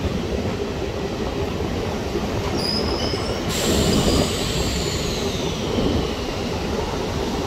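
Diesel multiple-unit passenger train running, heard from aboard as a steady rumble of wheels on the track. About halfway through, a high wheel squeal sets in and slowly falls in pitch.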